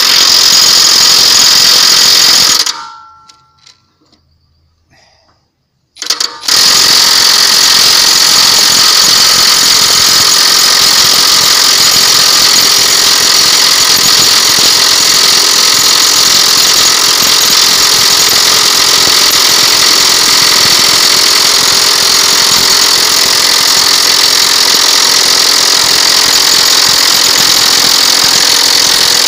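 Milwaukee M18 cordless impact wrench hammering on a rusted disc harrow axle nut: a loud run of about two and a half seconds, a pause of nearly four seconds, then continuous hammering for the rest.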